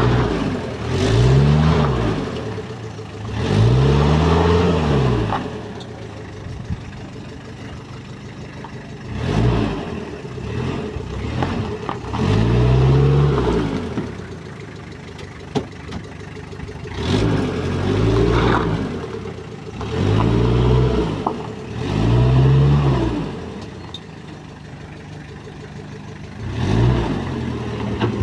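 Mazda R2 diesel engine being revved in short blips, about eight times, the pitch rising and falling back to idle between each.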